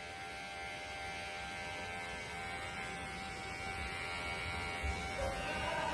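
Electric hair clippers running with a steady buzzing hum during a haircut.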